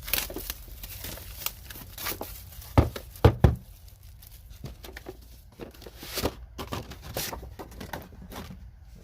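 Rustling and clicking of a plastic socket case and the metal impact sockets in it being handled, with a few heavier knocks about three seconds in.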